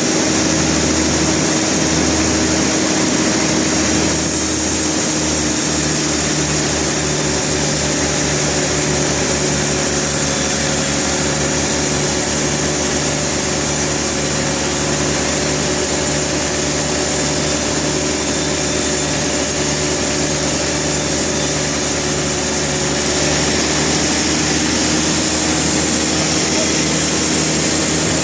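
Sawmill machinery running steadily, a motor hum under a hiss, with a fast low throb setting in a few seconds in.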